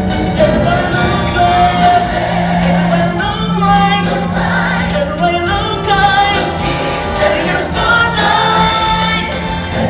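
Music with a choir singing long, held notes over a steady low accompaniment.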